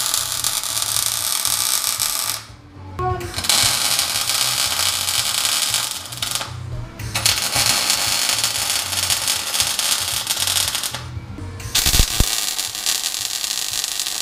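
MIG welding arc crackling and sputtering steadily as a weld is laid on steel square tube, in four runs of a few seconds each with short pauses between them.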